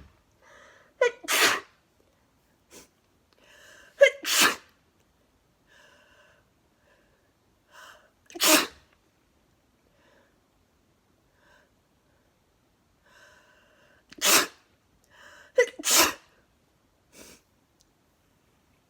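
A woman sneezing about five times in a row, wet, forceful sneezes, some led by a short catching breath. The last two come close together near the end, with faint gasping inhales in between.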